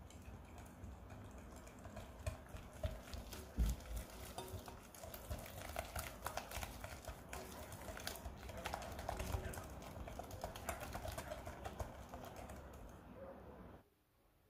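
Wire whisk beating oat-flour and egg batter in a glass bowl: quick, irregular clicks and taps of the wires against the glass, stopping suddenly near the end.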